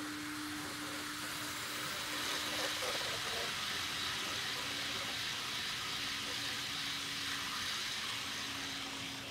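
N scale model freight train running past on the track: a steady rolling hiss of small metal wheels on rail with a steady hum underneath, a little louder from about two seconds in as the cars pass close.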